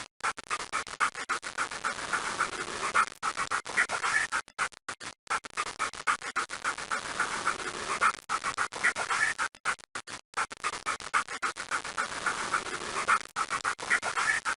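Cartoon sound effect of a tired dog panting: rapid, short breaths in quick succession, broken by brief pauses every few seconds.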